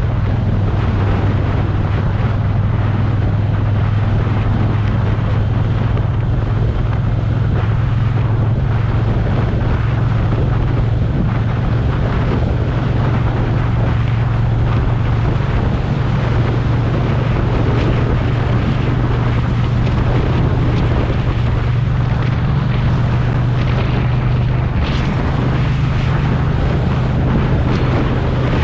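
Motorcycle engine running steadily while riding at road speed, with wind noise rushing over the microphone. The engine note rises slightly near the end.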